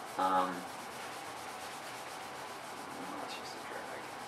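A brief vocal sound right at the start, then a steady hiss of background noise in the recording, with a few faint small sounds about three seconds in.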